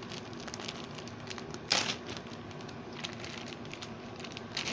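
Plastic bag of track connectors crinkling and rustling as it is pulled and stretched open, with a louder crackle about two seconds in and another near the end.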